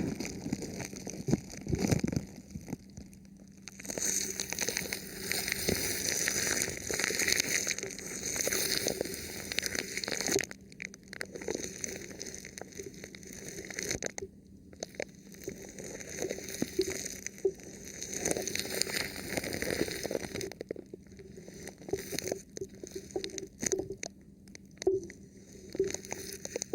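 Thin plastic film wrapped over a microphone, rubbed and tapped right on the mic, giving close crinkling and crackling with scattered clicks, in long dense stretches broken by short quieter pauses.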